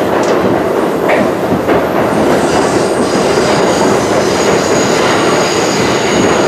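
New York City subway train running along the track, heard from inside the car: a loud, steady rumble. About two and a half seconds in, a steady high whine joins it.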